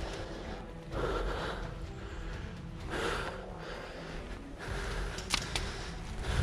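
Heavy breathing close to the microphone, two breaths about a second and three seconds in, followed by a few sharp clicks about five seconds in.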